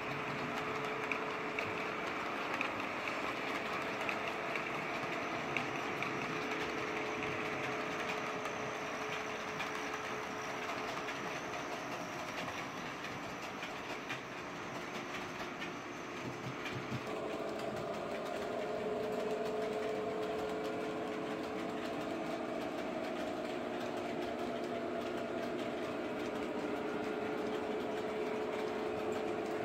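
OO gauge model trains running on the layout: a steady electric motor hum with light clicking of wheels over rail joints. The pitch of the hum changes suddenly about 17 seconds in.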